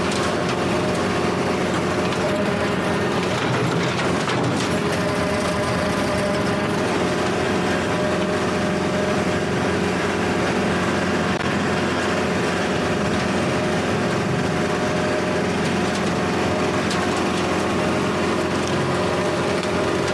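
Kubota L4701 tractor's diesel engine running steadily at working speed, driving a Countyline brush hog rotary cutter through tall grass.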